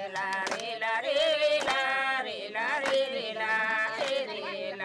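A group of Gond Adivasi women singing a folk song together, clapping their hands along with it.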